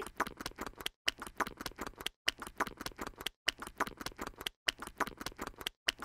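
Rapid mechanical clicking sound effect, several clicks a second, in runs of about a second separated by short gaps.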